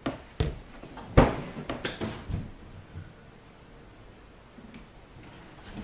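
A few short knocks and thumps of things being handled on a kitchen counter, including a lemon being set down, the loudest about a second in, then quiet room tone.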